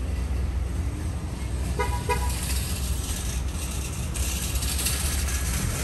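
Two short car-horn toots in quick succession about two seconds in, over a steady low rumble.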